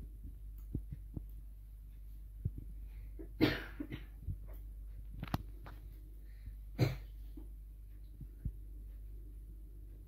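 Scattered light clicks and taps over a steady low hum, with two louder short knocks about three and a half and seven seconds in.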